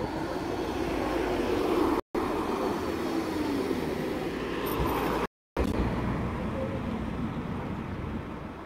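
Three-section articulated tram passing close and moving off through a curve, a running rumble with wavering, gliding tones that fades toward the end. The sound cuts out briefly twice.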